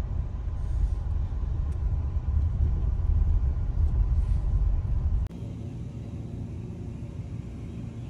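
Low road and engine rumble inside a moving car's cabin. About five seconds in it cuts off sharply to a quieter, steady hum.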